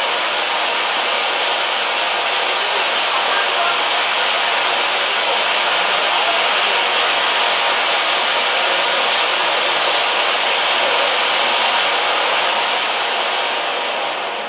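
Blackboxx 'Silver Flower' 12-inch giant fountain firework burning: a steady, loud hiss of spraying silver sparks that starts to die down near the end.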